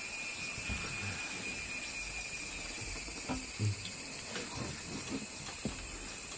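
Steady high-pitched drone of forest insects, like cicadas or crickets, holding two even shrill tones, with a few faint soft knocks beneath it.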